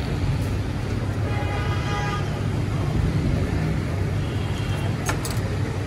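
Street traffic noise over a steady low engine rumble. About a second and a half in, a brief higher pitched tone sounds for under a second, and near the end there is one sharp click.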